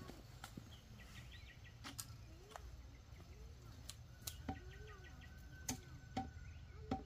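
Rural ambience: birds calling, with short rising-and-falling calls and bursts of rapid ticking trills, and one held whistle-like note in the middle. A sharp knock comes about every second.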